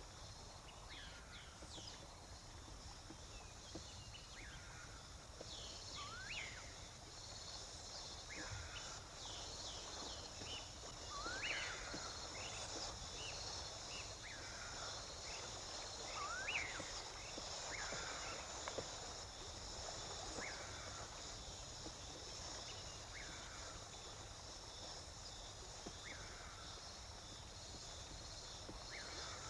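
Wild ambience: a steady, high-pitched insect drone with short sweeping chirps from small animals, one every second or two, somewhat louder in the middle.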